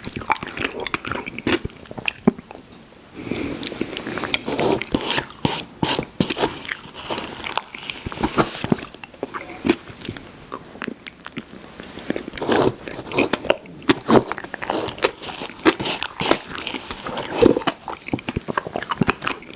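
Close-miked eating mouth sounds from ice cream being eaten: chewing, lip smacking and wet clicks in a steady, irregular stream, with a short lull about two seconds in.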